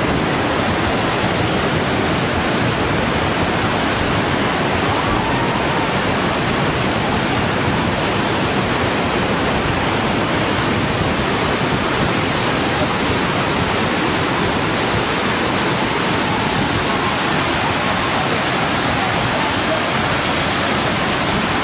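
Swollen, muddy river in flood, rushing water making a steady, unbroken noise.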